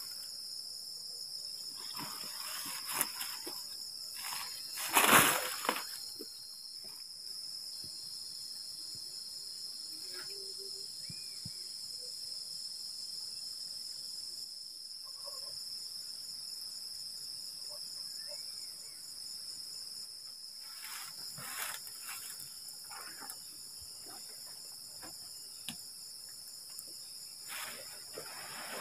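Steady high-pitched chorus of night insects, with intermittent rustles and knocks of nylon tent fabric and poles being handled as a dome tent is pitched, the loudest about five seconds in.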